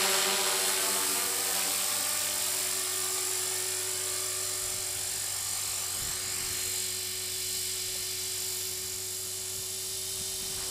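Electric 450-size RC helicopter's motor and rotor whining steadily with a high pitch during its automatic landing, growing slightly fainter as it descends and settles on the ground, still at flight speed.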